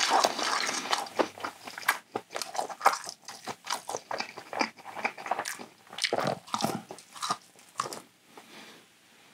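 Close-miked chewing and biting of battered fried squid (ojingeo-twigim): a quick run of crisp crunches that thins out near the end.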